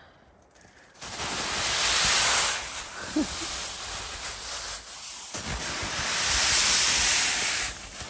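Snow sliding off the fly of a Hilleberg Nammatj 2 GT tent as a hand pushes the snow-laden fabric up from inside, a long rush of noise with rustling nylon. It starts about a second in, swells twice and dies away near the end.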